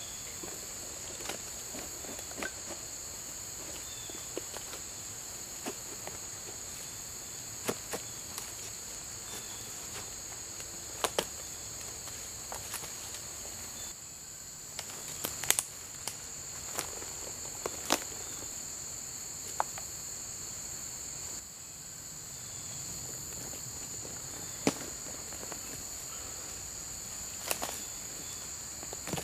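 Sharp cracks and snaps, scattered a few seconds apart, as bark is pried and torn off a dead tree trunk, over a steady high drone of insects.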